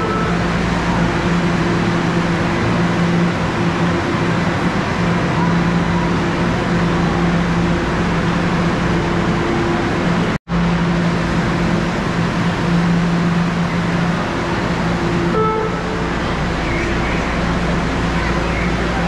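Steady mechanical hum with a low drone underneath. It cuts out for an instant about ten and a half seconds in, then carries on.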